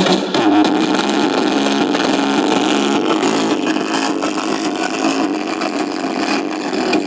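Home-built mini speaker cabinets playing audio loudly from a Bluetooth amplifier run on a 12 V battery, as a sound test. The playback is a dense, steady wash of sound with no clear tune.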